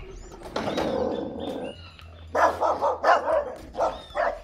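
A dog barking in a quick run of barks, about three a second, through the second half.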